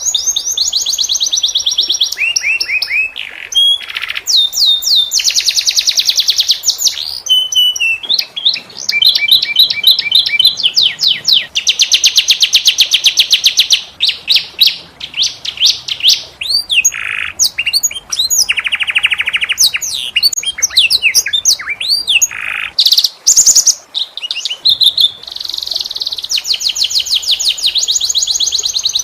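Domestic canary singing a long, fast song of rolling trills. It switches every second or two between runs of rapidly repeated notes at different pitches, with only brief breaks.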